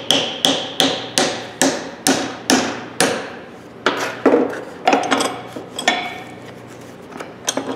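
Hammer blows driving a hardwood wedge into the eye of a hammer head to tighten the wooden handle: sharp knocks with a short ringing decay, about two a second at first, then slower and irregular after about three seconds, with a last few knocks near the end.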